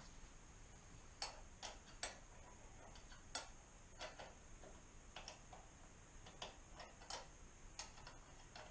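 Faint, irregular clicks of hand tools working the exhaust clamps, single sharp ticks spaced about half a second to a second apart.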